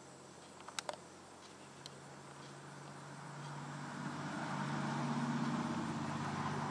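A motor vehicle passing, its engine hum and road noise growing steadily louder from about two seconds in and peaking near the end. A couple of sharp clicks come about a second in.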